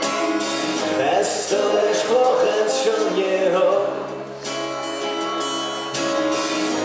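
Live band music: a male voice singing into a microphone over a strummed acoustic guitar.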